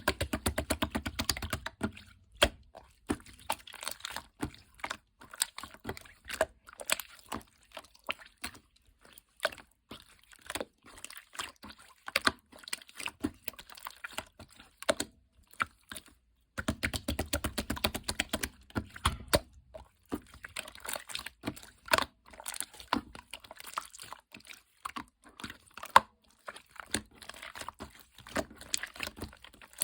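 Slime being squished and poked by hand, giving rapid clicking and crackling pops, with dense runs of quick clicks near the start and again a little past halfway.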